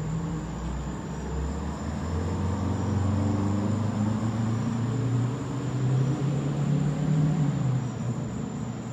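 1977 American LaFrance 1500/500 fire engine's engine pulling away and accelerating. Its note rises and gets louder for several seconds, then fades near the end as the truck drives off.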